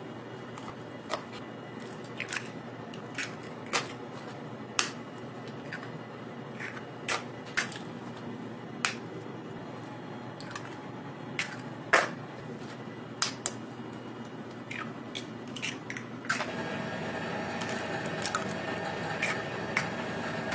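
Brown eggshells cracking as eggs are knocked against each other over a stainless steel bowl: a run of sharp, irregular cracks, about one a second.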